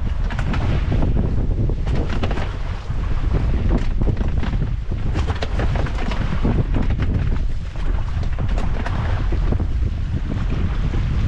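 Wind buffeting the microphone in a steady low rumble, with irregular slaps and knocks of water against a small boat's hull.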